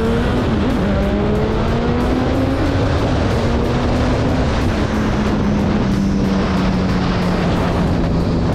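Sport motorcycle engine pulling hard as the rider accelerates: its pitch climbs, drops with an upshift just after the start, then holds fairly steady at cruising speed. Heavy rushing wind noise runs underneath.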